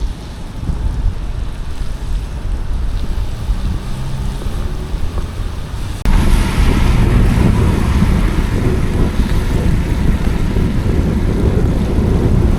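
Wind rushing over the microphone while cycling along a road, with a low rumble of traffic; the noise jumps suddenly louder about halfway through.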